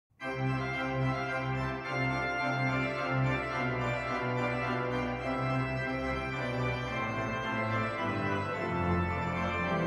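Organ music playing slow, sustained chords.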